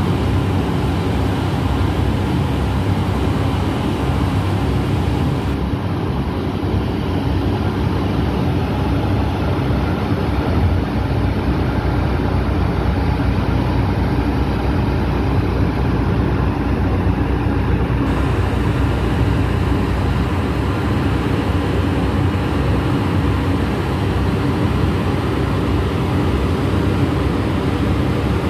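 Boat engine running steadily: a continuous low drone with a constant hiss over it.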